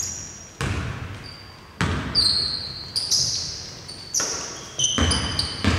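A basketball bouncing on a hardwood court, knocking about once a second. Each bounce rings out in a large, empty arena. Short high sneaker squeaks on the floor come in between.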